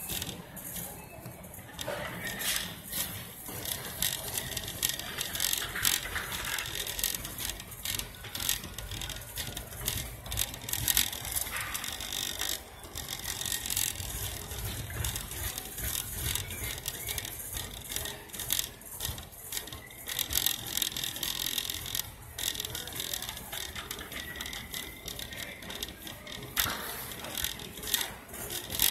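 Wire shopping cart rattling as it is pushed along a store floor: a continuous clatter of small clicks over a low rumble.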